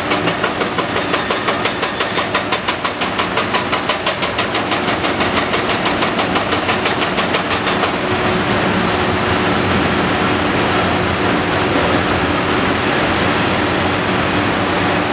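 Heavy diesel engine of a Cat 330D L hydraulic excavator running under load while its arm and bucket work, with a pulsing clatter of a few beats a second that gives way about halfway through to a steadier, even drone.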